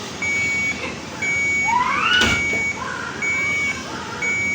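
Neonatal patient monitor alarm beeping steadily, one even half-second beep about every second. About two seconds in, a short rising squeak and a click sound over it.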